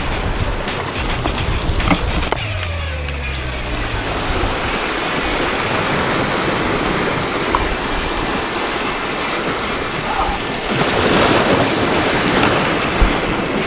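Sea surf washing and breaking over shore rocks, a steady rush of water with a louder wave surge about eleven seconds in.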